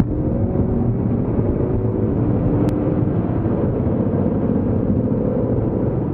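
Car engine and tyre/road noise from inside the cabin at speed, the engine note rising slowly under acceleration for the first few seconds and then holding steady. A sharp click right at the start.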